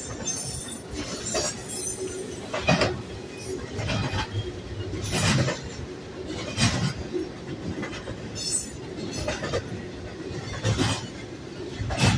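Double-stack intermodal well cars of a freight train rolling past, wheels clacking over the rail about every second and a third over a steady rumble.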